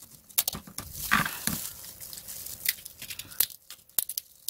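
Kitchen scissors snipping through cooked swimming-crab leg shells: a series of sharp, irregular clicks and cracks.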